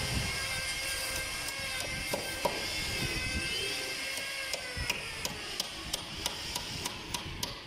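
Light knocks of a hand tool on a wooden boat plank, scattered at first and then coming about three a second in the second half.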